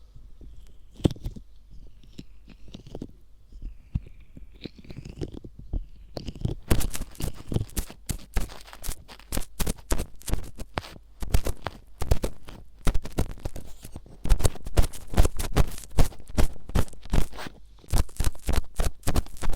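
Ear pick scraping and rustling against a microphone ear, in the close dry scratching of ear-cleaning ASMR. A few soft strokes at first, then quick repeated scratching strokes from about a third of the way in, louder near the end.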